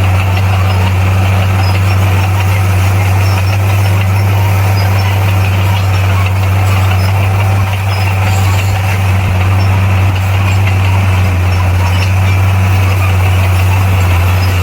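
A bulldozer's diesel engine running with a steady, low-pitched drone.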